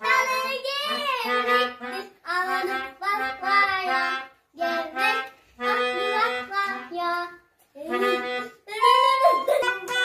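A child playing a melodica, a keyboard harmonica blown through a mouth tube, in short phrases of held reedy notes with brief breaks for breath.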